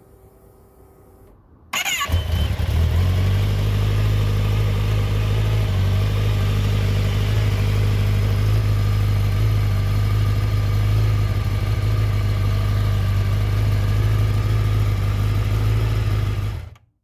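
Kawasaki ZX-10R inline-four engine started on the electric starter about two seconds in, catching at once and idling steadily, then cutting off abruptly near the end.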